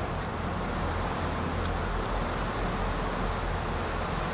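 Steady outdoor background noise: a low rumble with an even hiss, like distant traffic, and a few faint high ticks.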